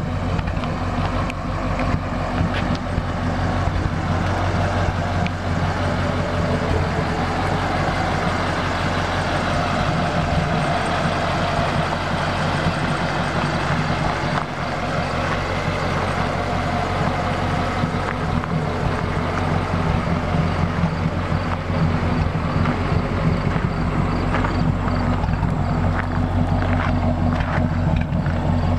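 1939 Ford half-ton pickup truck's engine idling steadily at an even pitch.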